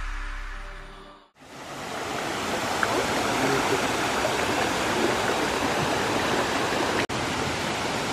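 Background music fades out in the first second, then a shallow mountain stream rushes steadily over stones and small cascades. The water sound breaks off for an instant about seven seconds in.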